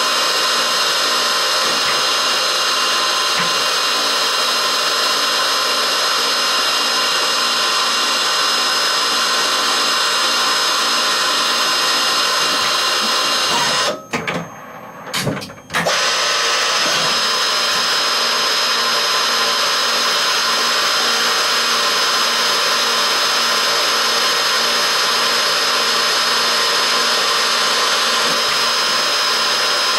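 Emco E25 CNC turn-mill lathe running a live-tool spindle that drills small holes in a turned metal part: a steady whirring with a high whine. About 14 s in the sound drops away for roughly two seconds, with a few knocks, as the tool changes, then the whirring returns.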